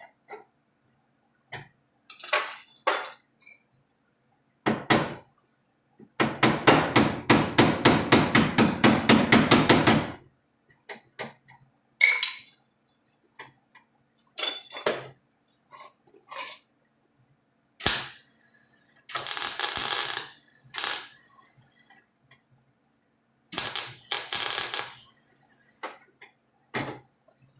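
Hand tools working a sheet-steel patch panel: scattered knocks and taps on the metal, then a fast, even run of about seven hammer blows a second for about four seconds. Later come two hissing bursts a couple of seconds long.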